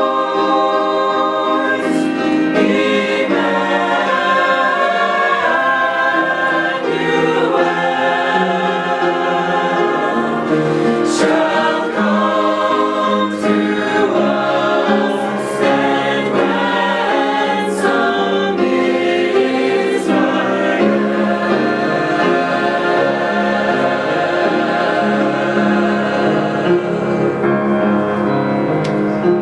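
Mixed choir of men's and women's voices singing a Christmas hymn.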